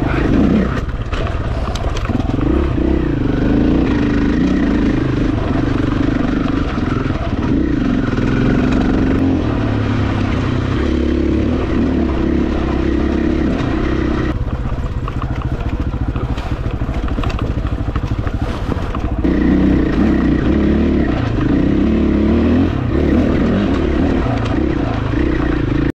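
KTM dual-sport motorcycle engine running under throttle on a dirt trail, its note rising and falling as the rider works the throttle. The engine eases off for several seconds a little past the middle, then picks up again.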